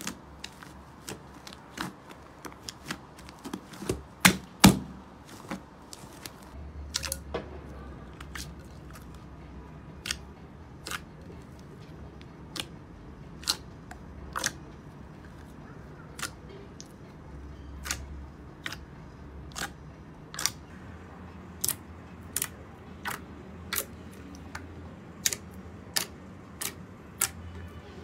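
Hands squishing and poking slime, making sharp sticky clicks and pops about one or two a second as fingers press into the slime and pull out of it, with a loud cluster about four seconds in.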